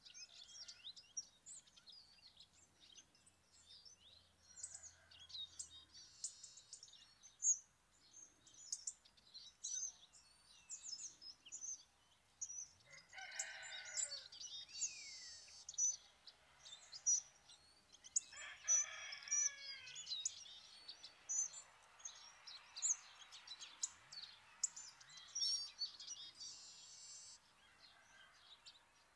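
Birdsong: a steady scatter of short, high chirps and calls from small birds, with two longer, lower calls about thirteen and eighteen seconds in that fall away at the end.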